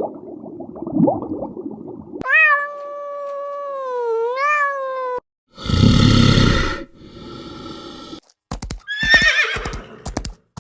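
A string of separate animal calls cut one after another. About two seconds in comes a long drawn-out pitched call that dips and rises again. It is followed by a loud harsh cry, then a few clicks and a shorter wavering call near the end.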